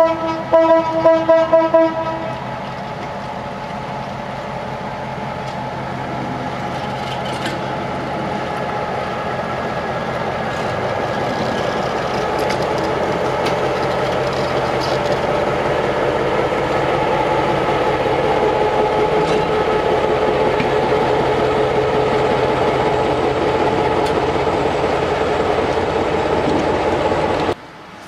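Diesel locomotive horn giving a quick series of short blasts. Then the locomotive's engine runs steadily as it moves past, growing louder as it comes closer. The sound cuts off abruptly near the end.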